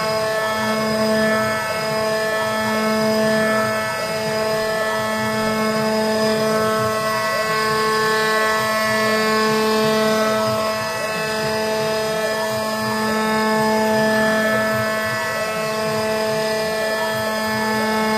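CNC router running an adaptive clearing toolpath: a steady spindle whine with stepper motors whirring underneath, their pitch rising and falling as the axes change speed.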